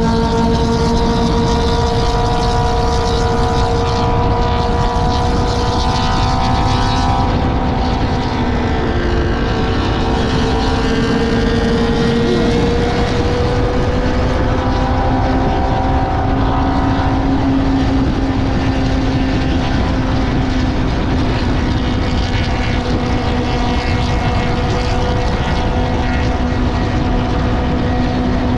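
Benelli TNT600i inline-four motorcycle engine running at a steady cruise, its pitch drifting only slightly, under a constant rush of wind noise.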